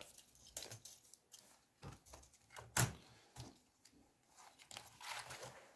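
Scattered light clicks and plastic handling noises as a laptop keyboard is laid into its case, with the sharpest click about halfway through and a soft rustle near the end.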